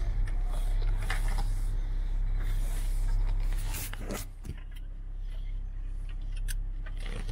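Land Rover Discovery running slowly in low gear, heard from inside the cabin as a steady low hum, with branches and thorns scraping along the paintwork in a few brief scratches, the strongest just before four seconds in.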